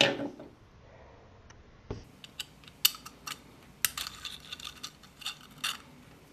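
A 3D-printed plastic disc shooter set down on a tabletop with a sharp knock, then a run of sharp plastic clicks and clatter as its printed parts are handled and fitted together.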